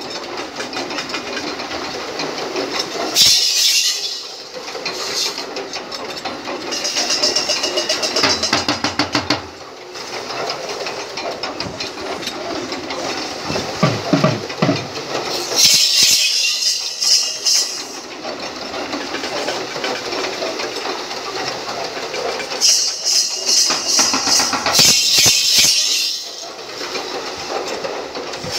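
Racing bull team and its wooden sled on a dirt track: hooves pounding and the sled rattling and clattering, swelling in rapid rattling bursts each time the team passes close.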